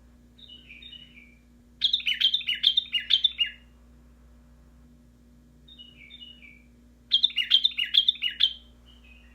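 White-eared bulbul singing: two loud phrases of quick, bright chirping notes, one about two seconds in and another about seven seconds in, each preceded by a few softer notes. A faint steady low hum runs underneath.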